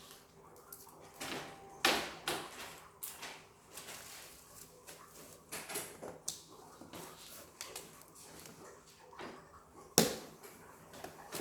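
Irregular knocks, clicks and rustles of things being handled, with a sharp knock about two seconds in and the loudest one near the end.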